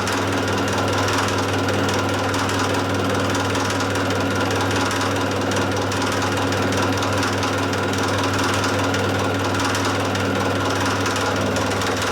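Hafco geared-head milling machine taking a full cut on a steel shaft, running steadily with heavy chatter from the cutter and the gears: the spindle speed is too slow for the carbide cutter.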